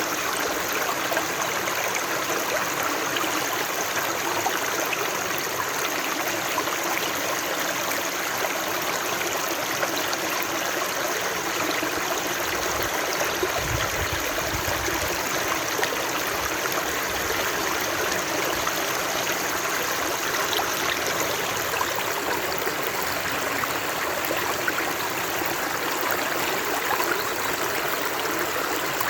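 Running water flowing steadily, an even rushing and trickling like a stream. There is a brief low rumble about halfway through.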